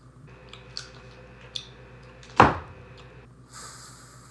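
A few light clicks, then a single loud thump about halfway through. Near the end a plastic grocery bag starts rustling.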